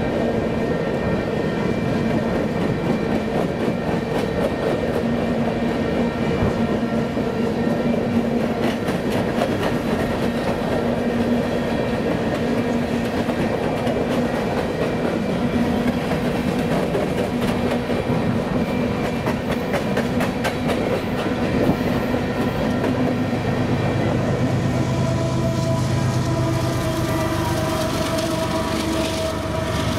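Empty covered hopper cars of a freight train rolling past, steel wheels on rail with a steady rumble and clicking over the rail joints. About three-quarters of the way through, the low hum and steady tones of distributed-power diesel locomotives in the train build up as the engines come by, one of them running offline.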